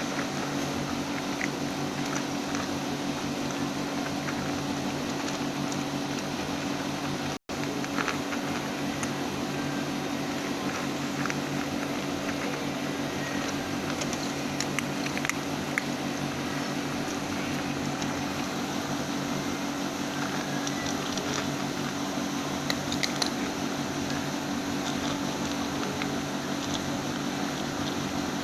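Domestic cat snoring in its sleep over a steady hum, with the sound cutting out for an instant about seven seconds in.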